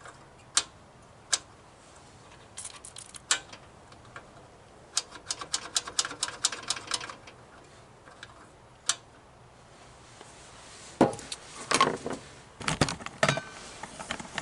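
Hand tools clicking and tapping on the mower engine's metal governor linkage while a stuck air vane linkage and its bolt are worked free. Single sharp clicks, then a quick run of clicks in the middle and heavier knocks near the end.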